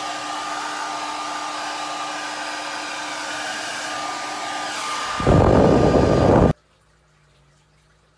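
Handheld hair dryer running steadily, blowing hot air to thaw frozen cypress mulch, with a faint steady whine over the rush of air. Just after five seconds in it turns louder and deeper for about a second, then cuts off suddenly, leaving quiet room tone.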